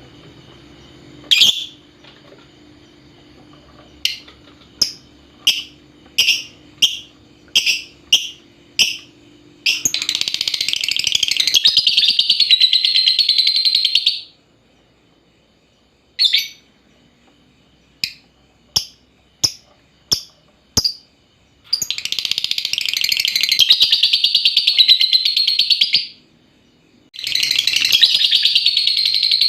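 Lovebird calling: a single sharp chirp, then a string of short, evenly spaced chirps, then long bouts of rapid, continuous chattering (the 'ngekek' song), three in all, the last still going at the end.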